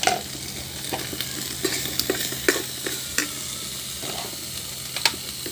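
Sardines and egg frying in oil in an electric cooking pot: a steady sizzle with many sharp crackles and pops, and a utensil stirring in the pan.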